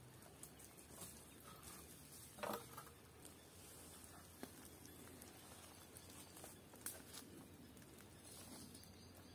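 Mostly very quiet, with scattered faint clicks and knocks as long wooden poles are handled and carried over twiggy ground, and one louder knock about two and a half seconds in.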